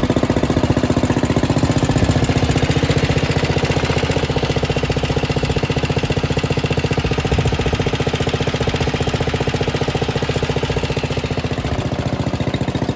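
1969 Wheel Horse lawn tractor engine running steadily at a fast, even idle, fed from its freshly repaired original gas tank.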